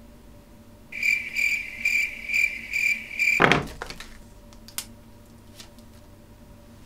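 Electronic sound effect: a high tone pulsing about twice a second for some two and a half seconds, then a quick swoop falling from high to low. A few faint clicks follow.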